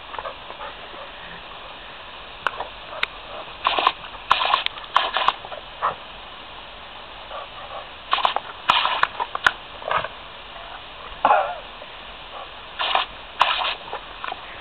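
A dog snapping and splashing at spray from a hose nozzle: irregular short splashy bursts in clusters, with a few sharp clicks between them.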